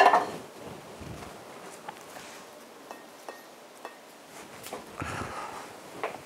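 A frying pan set down on a gas hob grate with one sharp clank, followed by small scattered clicks and soft handling sounds at the kitchen counter.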